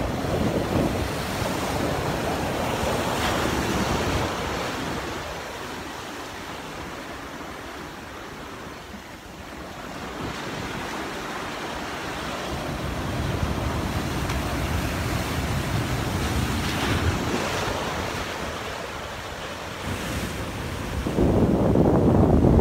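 Sea waves breaking and washing over rocks, swelling and ebbing in surges, with wind buffeting the microphone. The surf is loudest near the end.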